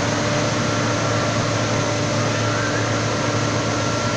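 Police water cannon truck spraying a full jet at full load, 16 bar: a steady rush of water with the engine and pump humming underneath.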